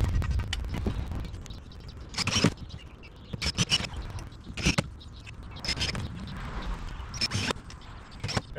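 Scattered short clicks and scrapes from tools and metal strut rails being handled on a trailer roof, after a low rumble that fades over the first second.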